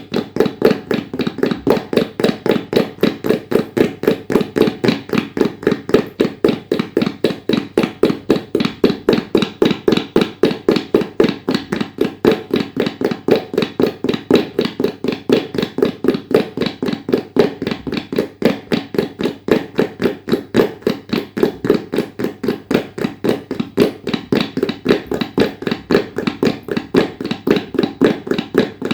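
Tabla played with the hands in a fast, even, unbroken run of strokes imitating the hoofbeats of a galloping horse.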